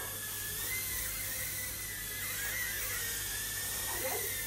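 Micro FPV quadcopter's tiny motors whining high and steady, the pitch wavering and dipping briefly a couple of times as the throttle changes.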